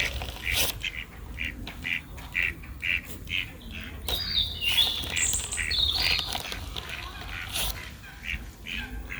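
Waterbirds calling at a lakeside: a run of short calls repeated about two or three times a second, with higher chirps and a short whistle about four to six seconds in.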